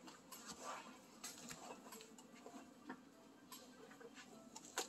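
Faint, scattered ticks and crinkles of foil Pokémon booster packs being handled and set down, with a sharper tick near the end.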